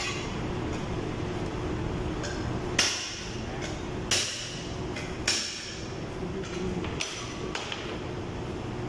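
Three sharp metallic knocks, a little over a second apart, each with a short ringing tail, over a steady workshop hum. A few lighter clicks follow near the end.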